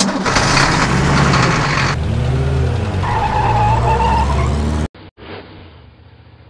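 Cartoon monster truck sound effect: an engine revving up and down with tires screeching, loud for about five seconds. It cuts off suddenly, and a quieter engine sound carries on.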